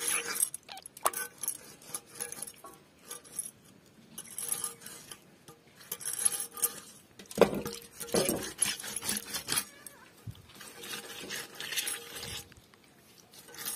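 Water splashing and dripping in an aluminium pot as small fish are lifted out and handled by hand, in irregular bursts with light clinks against the metal pot. A short pitched sound like a voice comes about halfway.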